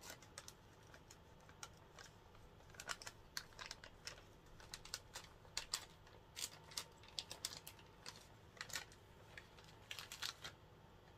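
Plastic candy bag crinkling and crackling in quick irregular clicks as fingers dig into it to pull out a small gummy candy.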